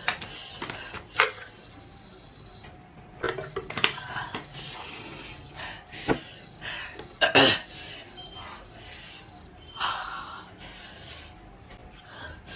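A person gasping, panting and sniffing from the burn of extremely spicy noodles, with breathy hisses coming in bursts. Several short sharp clicks fall in between, the loudest a little past halfway.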